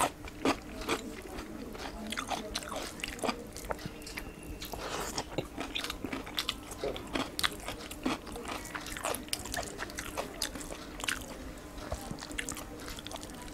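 Close-up sounds of a man eating rice and fish curry by hand: chewing and lip smacks with fingers squishing and mixing food on a plate, making a steady run of small wet clicks over a faint steady hum.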